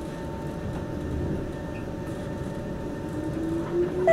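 MRT metro train heard from inside the carriage, running with a steady wheel-and-rail noise while a motor whine rises in pitch over the last couple of seconds as the train picks up speed.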